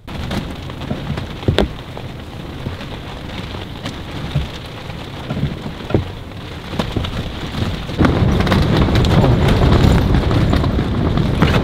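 Storm wind and rain hitting a rooftop tent, heard from inside: the tent fabric rustles and rattles steadily with a few sharp knocks, and about eight seconds in a stronger gust sets in, louder and deeper.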